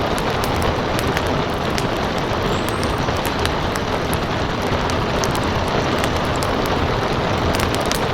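Steady rain hiss with a wood fire crackling over it, sharp little pops scattered irregularly throughout.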